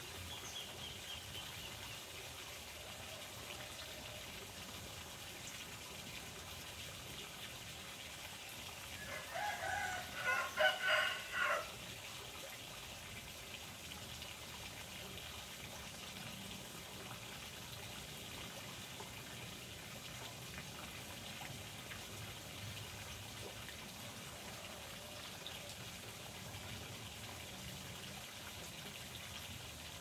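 Steady trickle of running water, with a rooster crowing once, about two and a half seconds long and starting about nine seconds in, the loudest sound. Faint bird chirps near the start.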